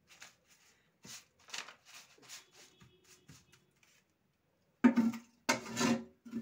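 A perforated metal skimmer scraping and rustling through crisp fried onion slices spread on paper, in a series of short strokes. About five seconds in, strummed guitar music starts and is the loudest sound.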